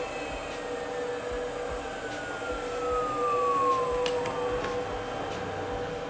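110 V, 1.5 kW water-cooled CNC spindle winding down after being switched off at its inverter: its whine falls steadily in pitch and fades out about three-quarters of the way through. Underneath runs the steady hum of the inverter's small cooling fan.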